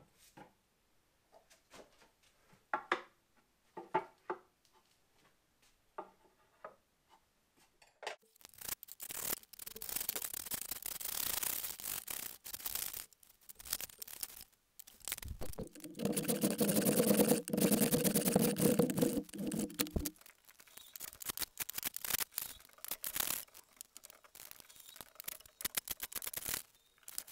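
Hand plane cutting along the edge of a wooden board held in a bench vise: repeated long rasping strokes starting about eight seconds in, loudest near the middle. Before that, a few light knocks of wood being handled.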